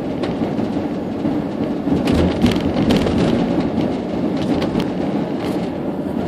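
Engine and road noise heard from inside a moving vehicle's cab, with frequent rattles and knocks throughout.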